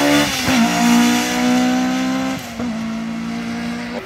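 Opel Kadett hill-climb race car accelerating hard, its engine held at high revs. It shifts up three times, a moment after the start, about halfway and at the end, and grows fainter as it pulls away.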